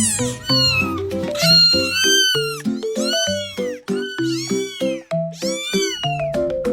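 A kitten meowing again and again in short, high-pitched, arching cries, over background music.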